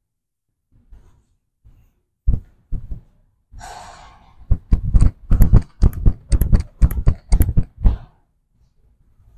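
A man breathing hard from exertion: a few heavy breaths, a long hissing breath, then quick, loud puffs about two a second that stop about eight seconds in.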